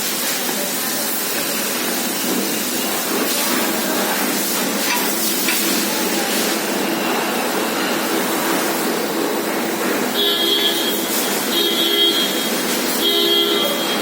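Steady traffic noise with a vehicle horn honking three times, each about a second long, near the end.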